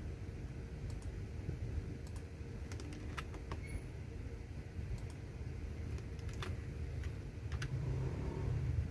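Computer keyboard keys being pressed: scattered, irregular clicks, some in quick pairs, over a steady low rumble.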